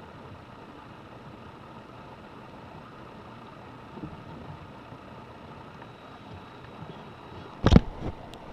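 Steady low background hiss, then a few sharp knocks and clicks near the end from laptop parts being handled.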